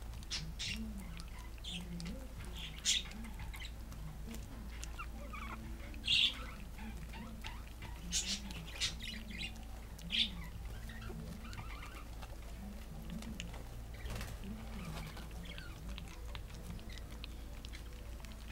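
Pomeranian puppies, just under four weeks old, eating wet food from a bowl: soft wet chewing and lapping, with a few short high-pitched squeaks every few seconds in the first half.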